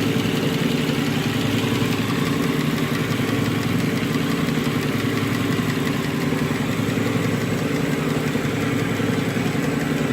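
2005 Nissan Murano's 3.5-litre V6 idling steadily with a misfire on cylinder 3 (code P0303), which the mechanic puts down to low compression in that cylinder.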